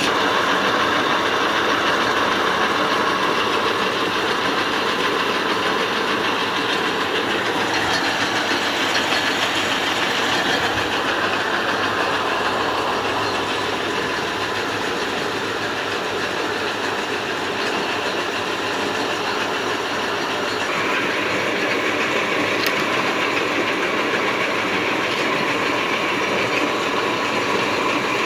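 Concrete mixer running, a steady mechanical rattle and rumble.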